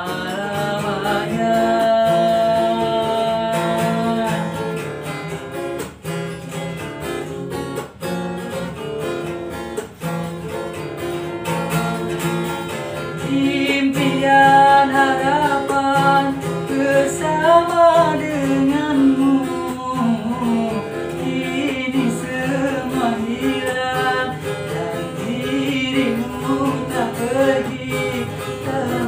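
A man singing a dangdut song to a strummed acoustic guitar, the voice growing louder about halfway through.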